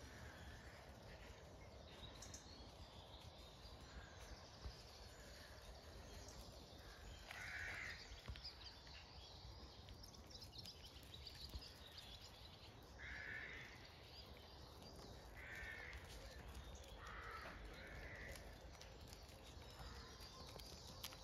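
Faint outdoor ambience with a few short, harsh bird calls, each about half a second long, spaced a few seconds apart through the middle of the stretch.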